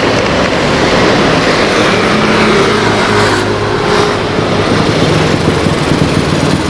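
Airbus A330-900neo's Rolls-Royce Trent 7000 jet engines running at low taxi thrust, a steady loud rumble as the airliner rolls along the ground.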